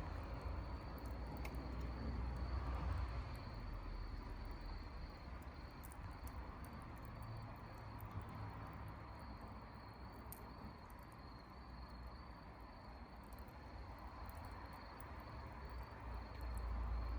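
Crickets trilling steadily on one high note, with faint scattered crackles from a wood campfire and a low rumble underneath.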